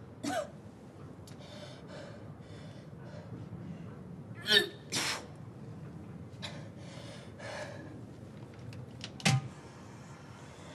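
A girl retching and gagging over a toilet as she forces herself to vomit: short harsh retches just after the start, twice about four and a half seconds in and once more near the end, with heavy breathing between them.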